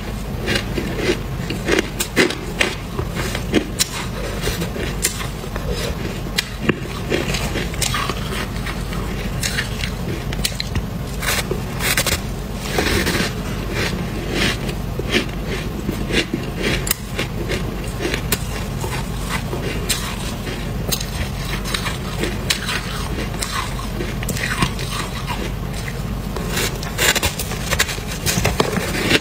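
Close-miked crunching of packed frost and shaved ice being bitten, chewed and crumbled by hand: a dense, irregular run of crisp crunches and crackles.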